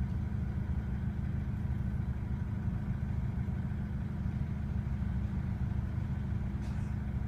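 Mercedes-Benz W210 E220 CDI's four-cylinder common-rail diesel idling rough, a steady low-pitched running sound.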